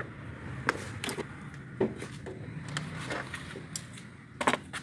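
A few short sharp clicks and knocks from wiring being handled and fitted around a car's hood hinge, over a low steady background hum.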